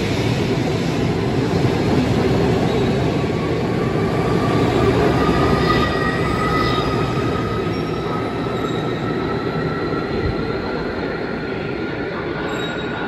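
Train running on the rails, loud and steady, with a faint whine that slowly rises in pitch; the noise eases off a little in the second half.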